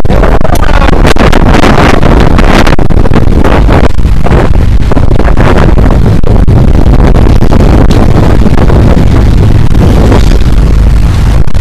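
Motorboat engines running under way, with wind buffeting the microphone. The sound is very loud and steady, with gusty rushes.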